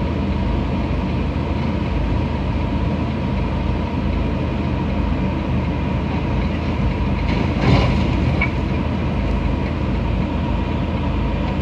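Steady low engine rumble heard from inside a vehicle's cab. About eight seconds in comes one heavy thump with a short rattle: the overturned MAN tractor unit dropping back onto its wheels as a tow truck's crane rights it.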